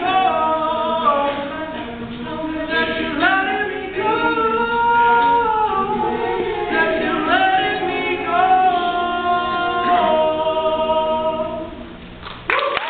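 All-male a cappella group singing in close harmony, a lead voice over sustained backing chords, with no instruments. The song ends about twelve seconds in, and applause breaks out from the audience just before the end.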